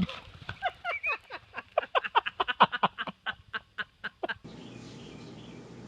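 An animal giving a fast run of short, sharp calls, about three or four a second, that stops abruptly about four and a half seconds in. A steady low hum with hiss follows.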